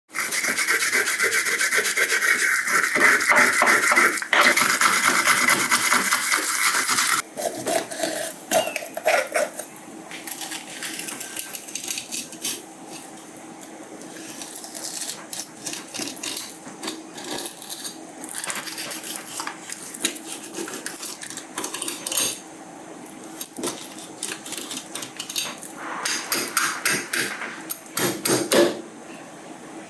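Rasping scrapes, dense and loud for the first seven seconds or so, then broken into shorter irregular strokes.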